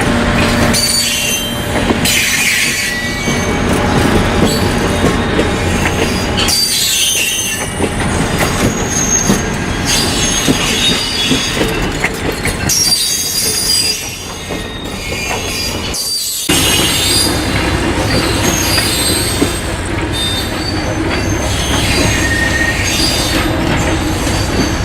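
Passenger excursion train rolling along the track, its steel wheels squealing on the rails, with some clickety-clack. The sound changes suddenly about a second, six and a half seconds and sixteen and a half seconds in.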